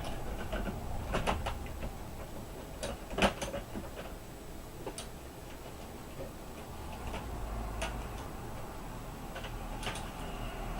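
Scattered light clicks and taps, about ten spread irregularly, from small screws and a screwdriver being handled on an opened laptop during motherboard reassembly, over a faint steady low hum.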